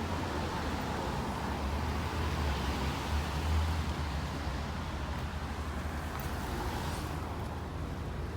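A vehicle engine running steadily: a low rumble under an even outdoor hiss, swelling a little about three seconds in.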